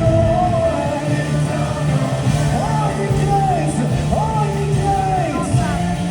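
Music with a singing voice: a sung melody line over a steady low bass.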